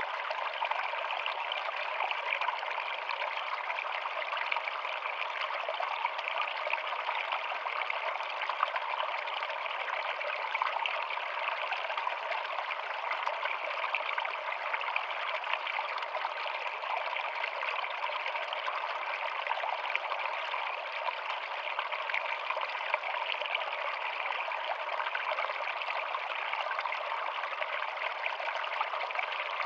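Small rocky stream splashing and trickling over stones in a little cascade, a steady rush of water.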